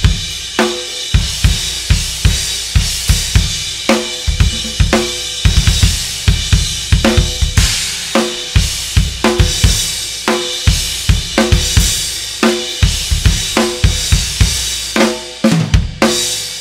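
Drum kit groove of bass drum, snare and cymbal, with a continuous cymbal wash over a steady beat, ending with a few hard hits and a cymbal left ringing out. The cymbal is a cracked Masterwork crash repaired by drilling holes into it.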